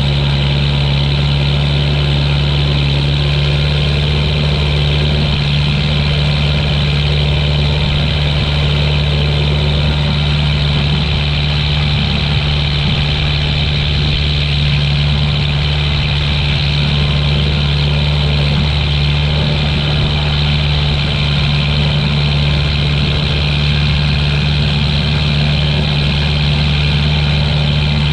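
Tractor engine running steadily while pulling a hay baler, heard from inside the closed cab as an even, unbroken drone.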